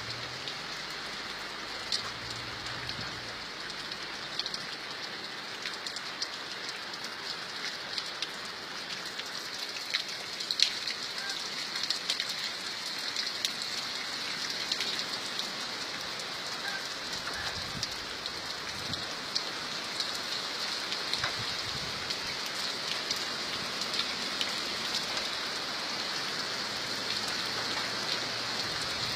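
Steady rainfall: an even hiss with many separate drops ticking sharply on a surface.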